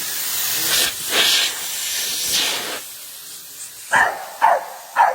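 Water spray hissing steadily from a hose while vehicles are washed, cutting off about three seconds in. Then a dog barks three times in quick succession.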